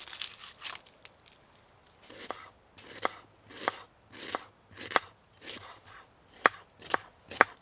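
Onion being sliced with a knife on a wooden chopping board: a crisp cut through the onion and a knock of the blade on the board, repeated about twice a second from about two seconds in, the last few strokes the loudest.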